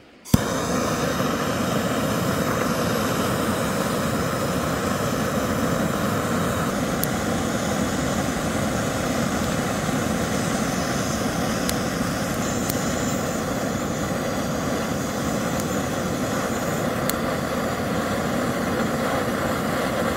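A loud, steady rushing roar that starts suddenly with a click and cuts off abruptly about twenty seconds later, with a few faint ticks through it.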